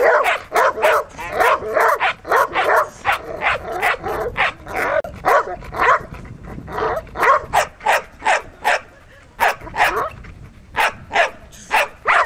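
Doberman barking in rapid, repeated barks, about two or three a second, with a short lull just past the middle: excited barking at a sack it is being teased with in bite-work training.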